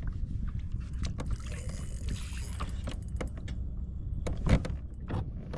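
Clicks, rattles and knocks of fishing tackle and a plastic kayak while a fish is played on a spinning rod and reel, over a steady low rumble. A sharp knock about four and a half seconds in is the loudest.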